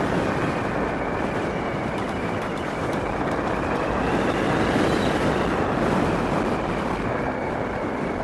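E-Mobo DuoTork electric scooter riding along in single-motor mode: steady wind and road noise with a faint motor whine that rises briefly about halfway through.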